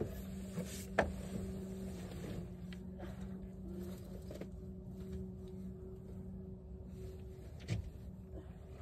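Steady low hum of the boat's motor, with a couple of short knocks, one about a second in and one near the end.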